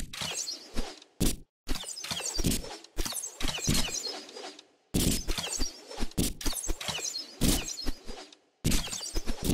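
Arrows thudding into an archery target one after another in quick, irregular succession, with chirping in the background; the sound breaks off for a moment a few times.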